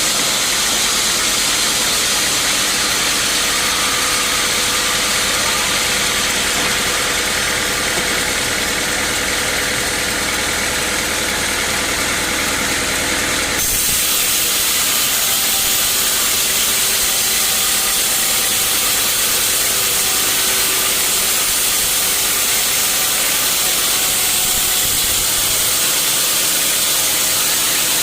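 Sawmill machinery running: a loud, steady engine-driven noise with a strong hiss. It shifts abruptly about halfway through, then carries on steadily.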